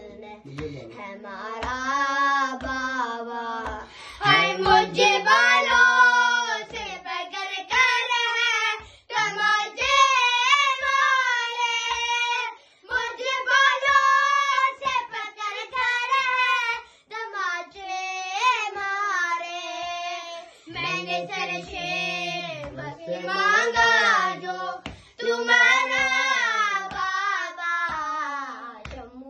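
Two boys singing an Urdu noha (Shia lament) together in high child voices, in long held phrases. Light regular thumps of hands striking the chest (matam) keep time beneath the singing.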